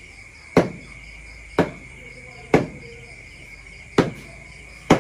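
Knife chopping raw pork on a wooden chopping board: five sharp chops, roughly one a second, over a steady chirring of crickets.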